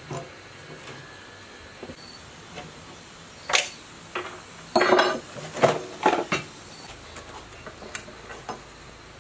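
Hand tools and metal parts clinking and clanking against an old portable generator's steel frame and panels as it is worked on: a cluster of sharp metallic knocks in the middle, with lighter taps and handling around them.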